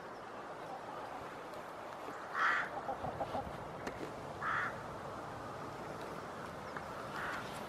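Two short animal calls about two seconds apart, with a fainter third one near the end, over a steady outdoor background hiss.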